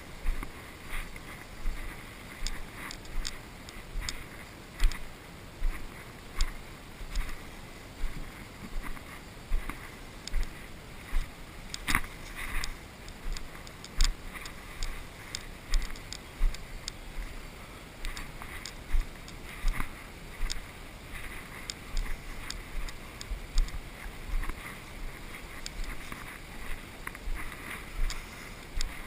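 Footsteps of a player walking at a slow, even pace, a little over one step a second, with soft thumps and light rustling of gear. A sharper click stands out about twelve seconds in.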